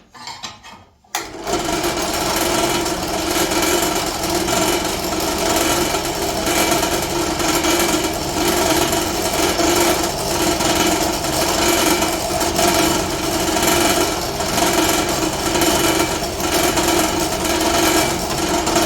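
Drill press motor starting about a second in and running steadily as a 2 mm carbide bit drills a stop-pin hole through a Damascus steel blade. The carbide bit is in use because a regular bit stalled on a hard spot, which could be a piece of carbide or hardened steel in the Damascus.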